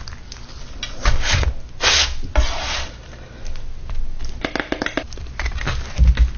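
Food being handled and assembled: several short rustling, scraping noises, then a run of small clicks and crackles about four to five seconds in.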